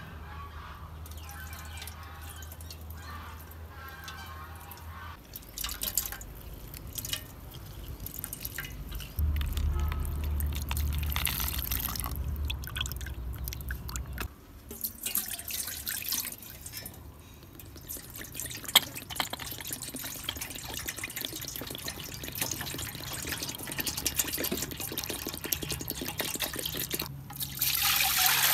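Oranges squeezed by hand, juice dripping and splashing into a bowl in small wet clicks. Near the end the juice is poured into a metal pot in a loud steady rush.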